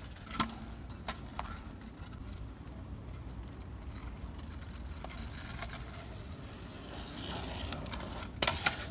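Stunt scooter rolling over rough asphalt, with sharp clacks of the deck and wheels hitting the ground about half a second and a second in, and a louder rattling clatter of landings near the end.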